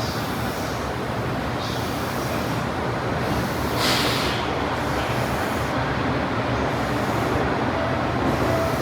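E235 series electric commuter train at the platform, a steady rumbling train noise. A brief hiss comes about four seconds in.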